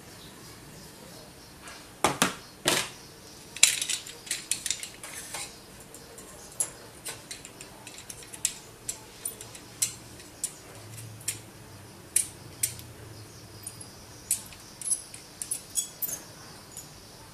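Irregular sharp metallic clicks and taps, starting about two seconds in: a metal tool prying and knocking at ceramic processors on a heated metal plate, lifting off their gold-plated caps once the solder holding them softens.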